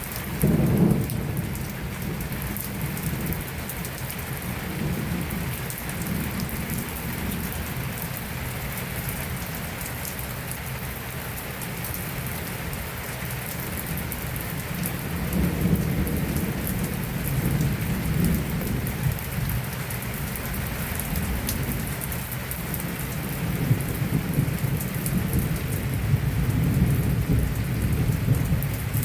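Heavy rain pouring steadily, with low rumbles swelling up about half a second in, again around the middle and near the end.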